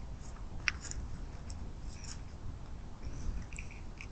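Deer eating cracked corn at a feeder: scattered small crunches and clicks over a low steady rumble, the sharpest click about two-thirds of a second in.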